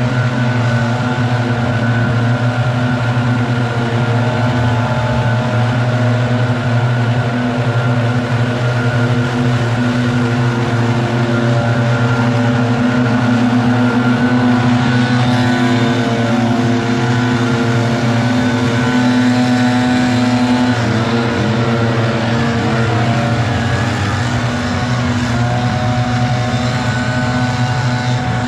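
Several gas backpack leaf blowers running together at high throttle: a loud, steady engine drone, with some of the engines shifting pitch about three-quarters of the way through.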